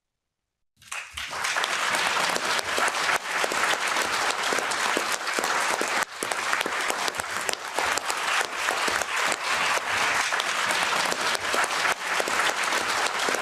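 A large audience applauding, many people clapping in a dense, steady mass that starts about a second in after a brief silence.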